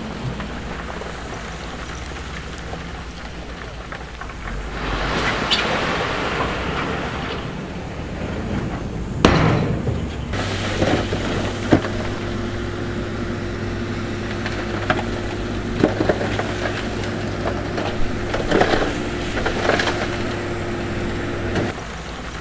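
Heavy diesel earth-moving machinery running steadily, with a sharp knock about nine seconds in and scattered smaller knocks of rock; a steady engine drone sets in abruptly about ten seconds in and stops shortly before the end.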